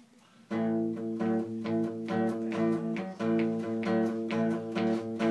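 Acoustic guitar strummed in a steady rhythm, starting about half a second in: the opening chords of a song before the singing comes in.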